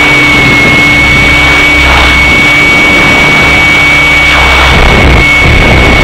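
Helicopter in flight: loud, steady engine and rotor noise with a constant high-pitched whine over a low, pulsing rumble.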